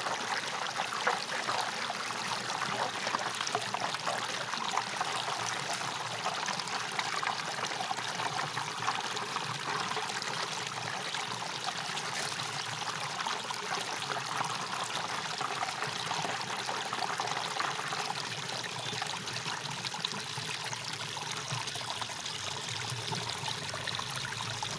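Water swirling down a drain hole in a whirlpool: a steady rushing, trickling flow.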